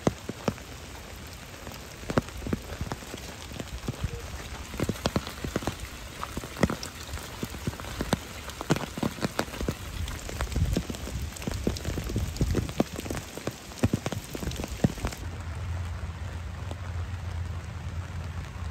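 Steady rain, with many sharp separate taps of drops landing close by. About fifteen seconds in, the taps thin out and a low steady rumble takes over under the rain.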